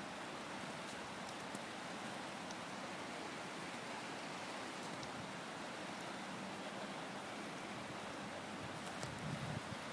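Steady rush of a high-running river, an even wash of water noise, with a few faint low bumps near the end.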